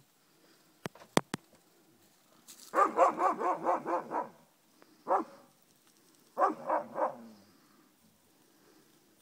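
Dogs barking at a cow moose that is standing her ground: a fast volley of barks, a single bark, then a shorter volley. Two sharp clicks come first.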